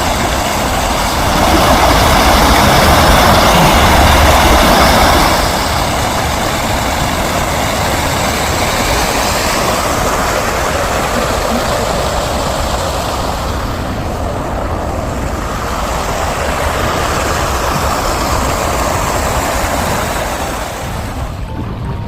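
Stream water rushing in a steady loud wash, swelling for a few seconds near the start and easing off toward the end.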